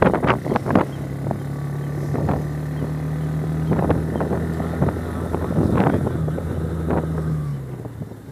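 Small moped engine of a motorised cargo bike running at a steady speed, with wind on the microphone. There are a few knocks in the first second, and near the end the engine note drops away.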